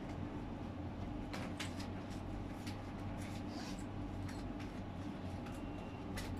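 Steady low machine hum, with a few faint, short clicks scattered through it.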